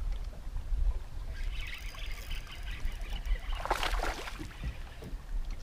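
Water lapping and sloshing against an aluminium fishing boat's hull, with wind rumbling on the microphone, and a short splashy rush about four seconds in.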